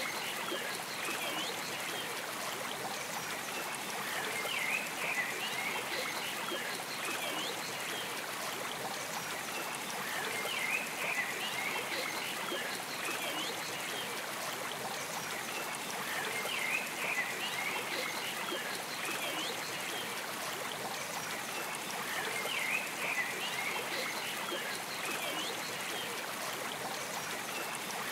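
Running water trickling steadily, with short clusters of high chirps recurring about every six seconds.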